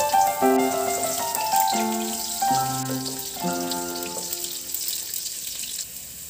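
Background music, a simple melody of single notes, over shallots and garlic sizzling and crackling in hot oil in a wok. The music fades out about five seconds in, leaving the sizzle alone.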